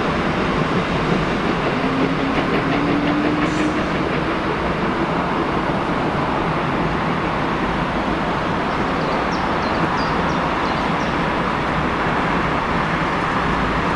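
Red regional electric multiple unit rolling into the station: a steady rumble and hiss of wheels on rails, with a faint tone rising slightly about two seconds in and a few faint high ticks near the end.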